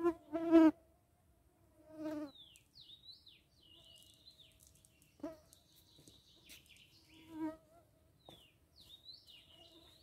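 Flying insects buzzing in short passes, loudest about half a second in and again near two, five and seven and a half seconds. Between the buzzes, a bird sings short phrases of quick rising and falling whistled notes.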